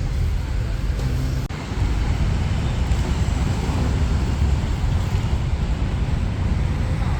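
Street traffic: a steady low rumble of passing vehicles, with a brief break about one and a half seconds in.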